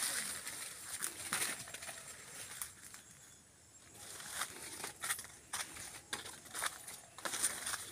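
Irregular rustling and crunching of footsteps through dry leaf litter and leafy undergrowth brushing past, with a quieter lull in the middle.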